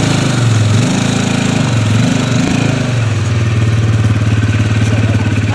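ATV (quad bike) engine revving up twice, its pitch rising and falling each time, then settling to a steady idle.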